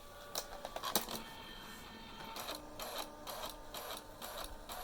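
Canon Typestar 3 thermal typewriter printing: a sharp click about a second in, then its print mechanism running in short repeated strokes, about three a second.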